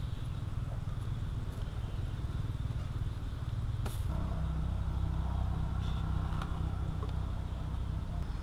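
A steady low rumble with a few sharp clicks of metal tongs handling pork ribs on a charcoal grill grate, the loudest click about four seconds in.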